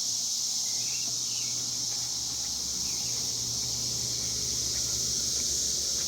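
Steady high-pitched drone of a cicada chorus.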